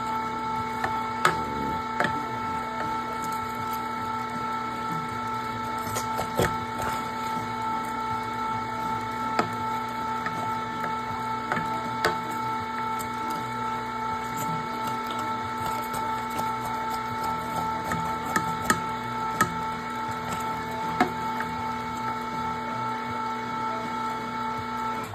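Electric meat grinder motor running steadily with a constant hum while ground venison is pushed through its stuffing tube into a freezer bag. Occasional sharp clicks sound over it, and the motor cuts off suddenly at the end.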